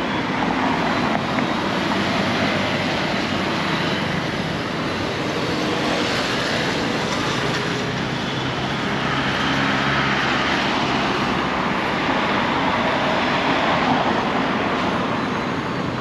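Road traffic on a busy multi-lane street: cars and motorcycles driving past, a continuous engine and tyre noise that swells as vehicles go by.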